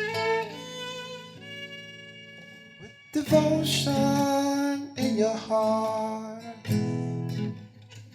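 Music with guitar chords: soft held notes fade for the first three seconds, then louder strummed chords come in about three seconds in and again twice more.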